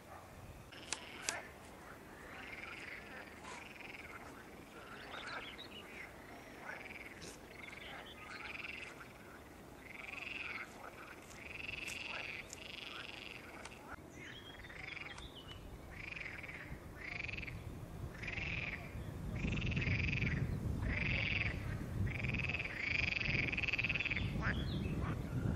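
Frogs croaking in a long series of short calls, about one a second, becoming steadier and stronger from about halfway through. A low rumbling noise rises under them for the last few seconds.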